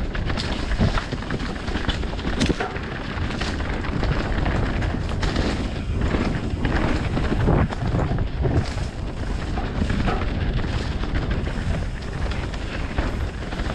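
Wind buffeting the microphone of a rider-mounted camera on a fast mountain-bike descent, with the bike's rattle and frequent knocks over rough trail.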